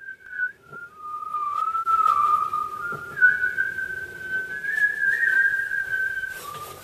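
A person whistling a slow tune: long held notes that step up and down in pitch, with short breaks between phrases.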